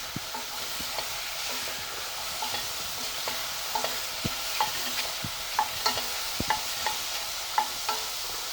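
Food sizzling steadily in a hot frying pan, with irregular sharp taps and clicks of kitchen utensils about once or twice a second.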